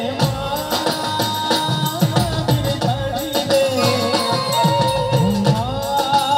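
Live Gujarati folk song played loud through a PA sound system: a held, wavering melody line over a steady beat of drums with pitch-bending strokes and jingling percussion.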